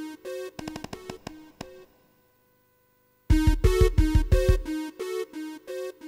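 Electronic background music: synthesizer notes in a steady rhythm that fade out about two seconds in. After a second or so of silence the music comes back with heavy bass pulses.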